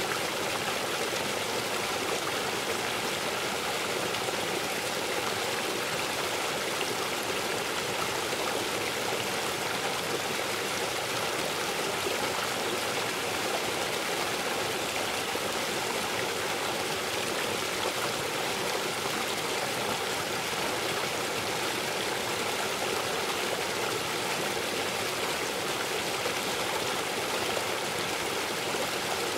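River water rushing over rocks and small falls: a steady, even rush that does not change.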